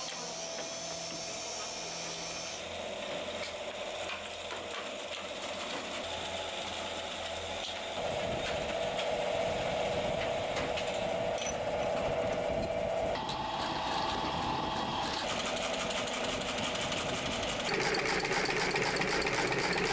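Belt-driven brush tufting machine running, its head clattering in a fast, even rhythm as it punches bristle tufts into a plastic brush block. Louder from about eight seconds in.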